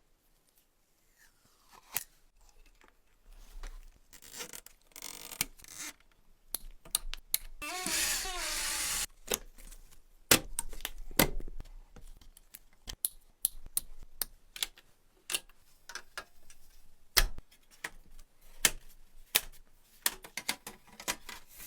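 Clicks, taps and scraping of computer parts being handled and fitted together in a small PC build, with a longer crinkling, tearing noise about eight seconds in, like plastic packaging or film.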